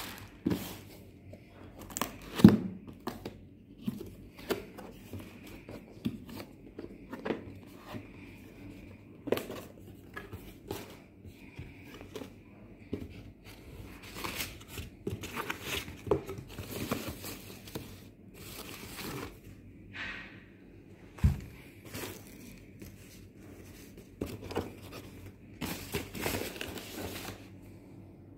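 Plastic packaging rustling as a cardboard box with foam inserts is opened and handled. Irregular rustles and knocks, the loudest about two and a half seconds in and again about 21 seconds in.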